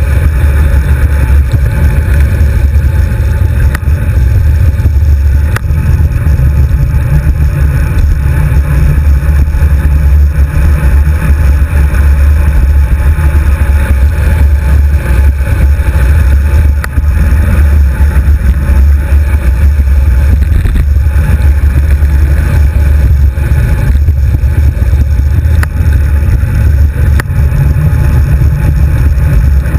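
Wind buffeting the microphone of a GoPro HD2 mounted on a road bike's handlebars while riding: a loud, steady, low rumble with no breaks.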